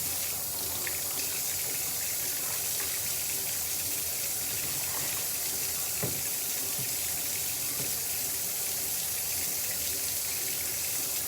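Kitchen tap running steadily into a sink while potatoes are washed, with a brief knock about six seconds in.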